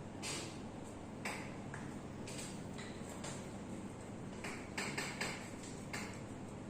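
Hands working on the body in a massage: a string of short, sharp hits on skin, spaced about a second apart at first, then a quick cluster of four about four to five seconds in.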